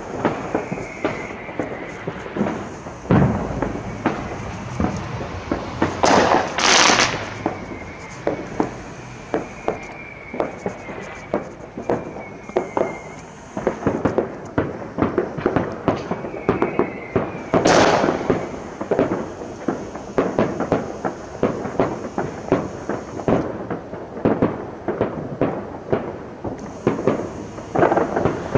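Fireworks going off all around: steady crackling and popping, with two big bangs about 6 and 18 seconds in. A wavering high whistle comes and goes between them.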